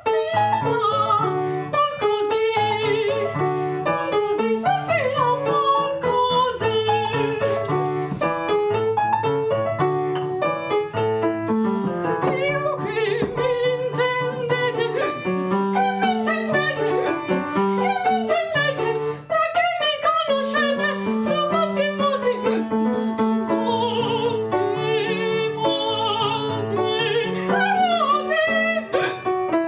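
A high operatic voice sings a Baroque comic aria over a piano accompaniment.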